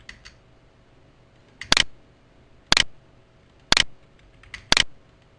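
Four loud, sharp clicks evenly spaced a second apart, each a quick double snap, with a few faint lighter clicks near the start and just before the last one: clicks from operating a computer while editing a circuit diagram.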